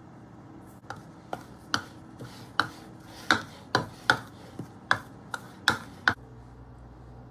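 Spatula knocking and scraping against the side of a bowl while stirring a dry flour coating, about a dozen sharp taps roughly two a second. The taps stop about six seconds in.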